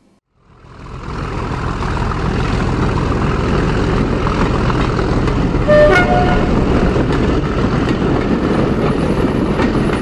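A train running, fading in over the first second or two and then holding steady, with a brief two-tone horn toot about six seconds in, low note then high.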